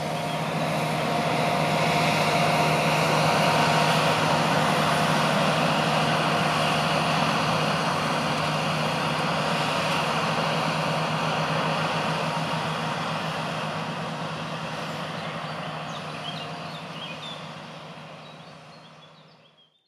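Farm vehicle's diesel engine running steadily with a constant low hum under a broad mechanical roar, fading out over the last few seconds.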